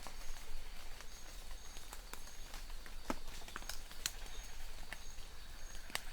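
Steady rain hiss with sharp drops pattering close by at uneven intervals. A faint, high, short chirp repeats every so often over it.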